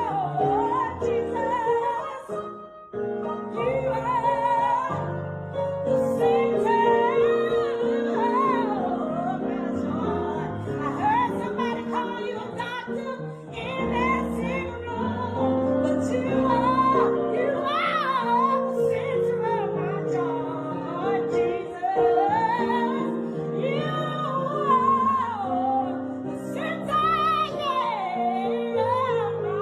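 Gospel music: a woman singing wavering, melodic lines over piano accompaniment.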